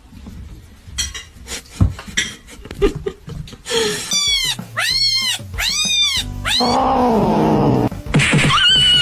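Cat meowing: several short rising-and-falling meows about halfway through, then a longer, lower drawn-out meow, after a few scattered knocks.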